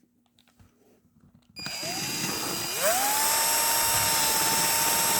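Power drill starting about a second and a half in, its motor whine rising in pitch as it spins up and then running at a steady high speed, boring out the pressed-in pin of a BMW paddle shifter with a bit one size bigger than the pilot hole.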